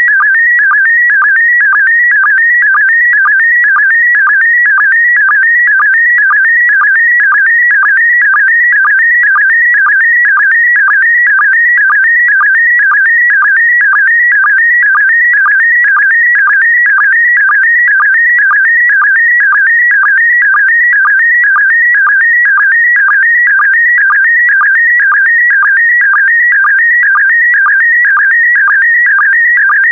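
Slow-scan television (SSTV) signal in PD120 mode transmitting a colour image: a loud, rapidly warbling whistle whose shifting pitch carries the picture's brightness and colour, broken about twice a second by a short lower blip, the line sync pulse.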